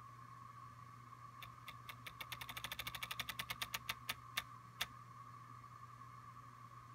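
Apple Watch Taptic Engine tapping as the Breathe app guides an inhale: a run of small clicks that speed up to a rapid patter and then slow to a few single taps, the last ones the loudest. A faint steady hum sits underneath.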